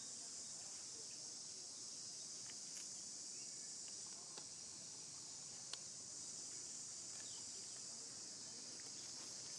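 Steady, high-pitched insect chorus, unchanging throughout, with a few faint clicks, the sharpest a little under six seconds in.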